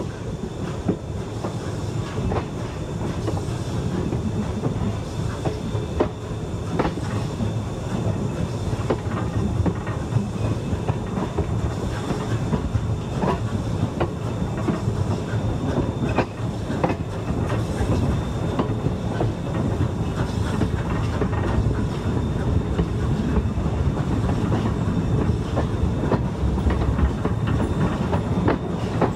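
Empty log train rolling slowly on jointed track, heard from on board a flat car: a steady low rumble of the cars, with scattered sharp clicks and clanks from the wheels and couplings.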